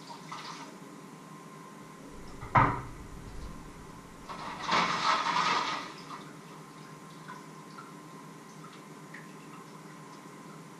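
Kitchen sounds at the stove and sink: a single sharp knock of cookware, then a rush of water lasting about a second and a half.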